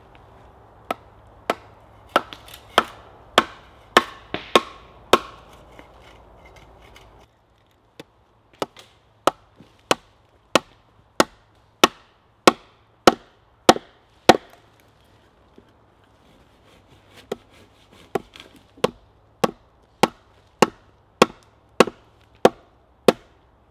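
Wooden mallet striking the wooden legs of a hewn log saw horse, driving them into their holes: a long run of sharp, evenly spaced wooden knocks, about one and a half to two a second, with a short pause a few seconds in.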